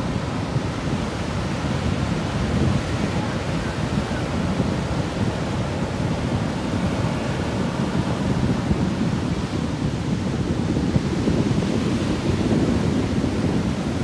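Heavy storm-swell ocean surf breaking and washing ashore: a steady, deep, loud wash of waves.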